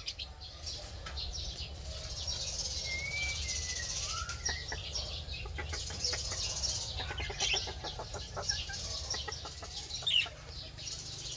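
Many small birds chirping and twittering together, with a few clearer whistled notes a few seconds in, over a steady low rumble.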